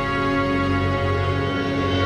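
Background music: sustained held chords with a slow, soft character.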